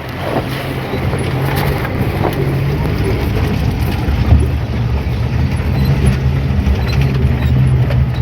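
A motor vehicle running steadily, with a constant low engine hum.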